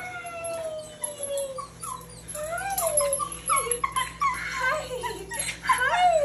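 Puppy whining and crying with excitement in a reunion greeting: one long high whine falling in pitch, then, from about two seconds in, a quickening string of shorter rising-and-falling cries that grow louder toward the end.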